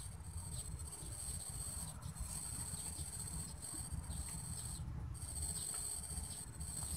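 A steady, high-pitched drone of insects in the riverside vegetation, breaking off briefly a few times, clearest about five seconds in. A low rumble runs underneath.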